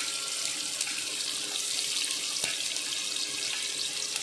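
Chopped onion sizzling steadily in hot mustard oil in a kadhai.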